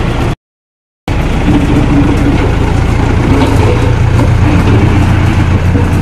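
Diesel engine of a three-wheel static road roller running steadily as the roller moves over a fresh tar patch. The sound cuts out completely for under a second near the start, then the engine note carries on.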